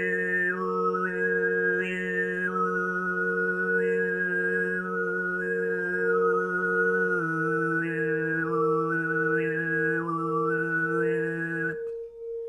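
Overtone throat singing: a steady low vocal drone with a whistling overtone melody stepping between pitches above it, over a singing bowl whose ringing tone pulses evenly about twice a second. The drone drops slightly about seven seconds in, and the voice stops near the end, leaving the bowl ringing on.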